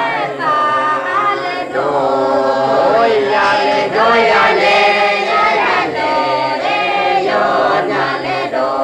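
A choir of voices singing unaccompanied in several parts at once, a chant-like melody with changing notes.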